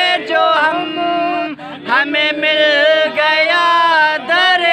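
A man singing a devotional verse in long, held notes, the pitch wavering and gliding between them, with short breaks for breath.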